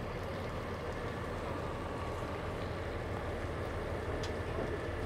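Heavy-duty tow truck's diesel engine running steadily, a low drone, with a faint click about four seconds in.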